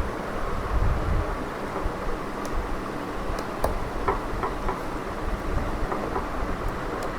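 Steady rumbling background noise, with a few small, sharp clicks in the middle from the phone being taken apart by hand.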